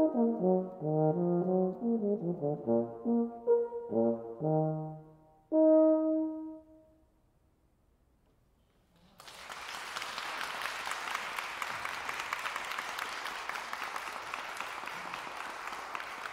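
Baritone horn finishing a solo mazurka: a quick melodic run, then a final held note that dies away about seven seconds in. After a couple of seconds of near silence, an audience applauds steadily.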